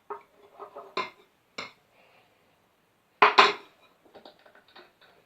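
Hard clinks and knocks of kitchenware, such as a utensil against a bowl, during slime mixing. A few separate knocks come first, then a loud double knock about three seconds in, followed by lighter clicks.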